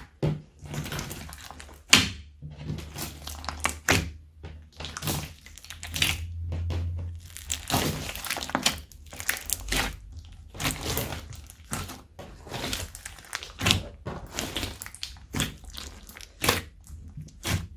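Slime being squeezed and mixed by hand, giving off irregular sticky pops and crackles with a few sharper snaps.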